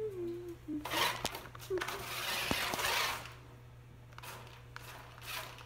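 Toy electric RC monster truck driven in short bursts over a tile floor, its motor and gears whirring with a rasping hiss about a second in and again for over a second after that.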